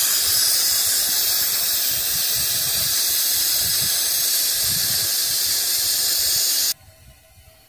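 Gas hissing out of a 1 lb propane cylinder whose pressure-relief valve is held open with pliers while it fills from a larger tank, venting air so liquid propane can flow in. A loud, steady hiss that stops abruptly about seven seconds in.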